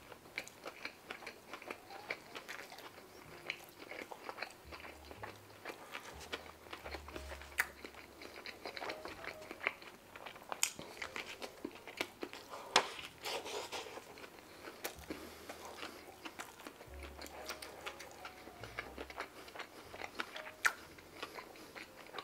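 Close-miked chewing and biting on a slider sandwich: a steady run of small wet mouth clicks and smacks, with a few sharper, louder clicks standing out.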